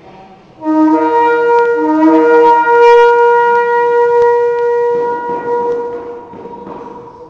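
Shofar blast. It begins a little under a second in on a low note, breaks up to a higher note that holds for several seconds with a couple of brief breaks, then fades into breathy noise near the end.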